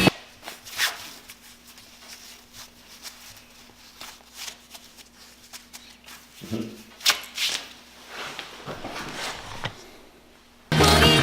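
Light rustling, clicks and taps of things being handled, with a few louder clusters about two-thirds of the way through and a faint steady hum underneath. Loud music cuts back in near the end.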